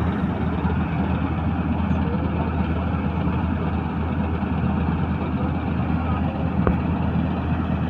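Preet 987 combine harvester's diesel engine and threshing machinery running steadily under load while cutting paddy, a constant low drone.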